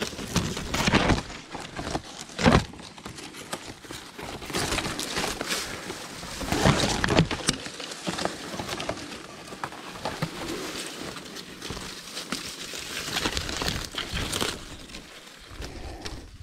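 Dry reeds and brush rustling and crackling as someone pushes through them, with a few sharper knocks. The loudest is about two and a half seconds in.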